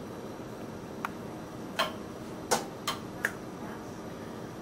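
A spoon clicking sharply against the bowl five times while filling is scooped into empanada dough, over a steady low room hum.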